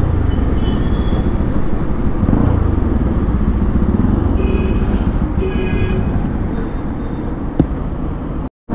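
Motorcycle engine running at low speed as the bike slows and pulls over to the roadside, with city traffic around it. Two short high toots from traffic come around the middle, and a sharp click near the end before the sound cuts out.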